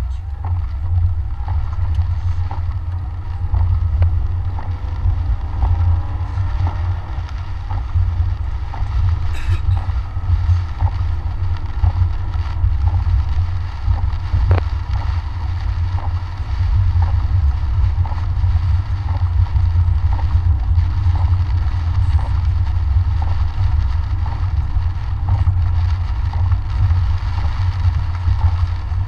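Inside a car driving in heavy rain: a steady, loud low rumble of road and engine noise, with rain and wipers on the windshield and a faint tick repeating at even intervals.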